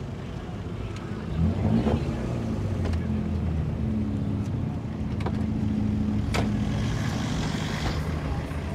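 A vehicle engine running at low speed, its pitch and loudness rising briefly about a second and a half in. A sharp click comes a little past the middle.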